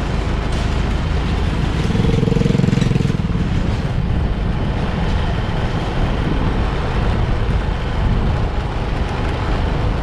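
Motorcycle engine running steadily while riding on a dirt track, mixed with wind rumble on the microphone. The engine note is briefly louder about two seconds in.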